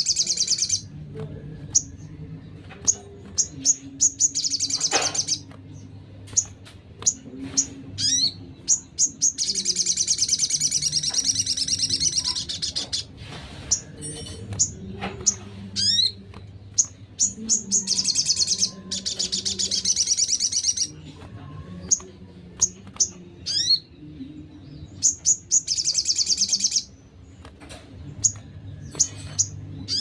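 Small songbirds calling and singing: bursts of fast, high trills a few seconds long, spread among sharp single chips and quick sliding whistles.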